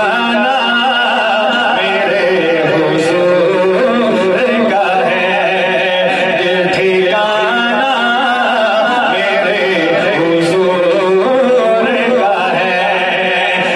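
A man singing a naat, an Urdu devotional poem, into a microphone, in one continuous line with long held, wavering notes.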